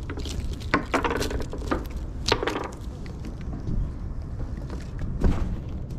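A herring flapping on a wooden pier deck, its body slapping the boards in a few irregular sharp knocks, most in the first three seconds and a loud one near the end, over a steady low rumble.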